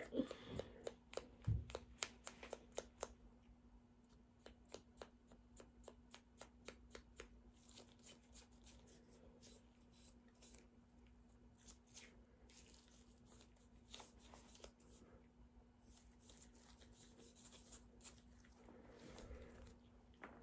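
Faint clicks and rustles of gloved hands handling and cleaning a Glock pistol slide, most frequent in the first three seconds and then only now and then, over a faint steady hum.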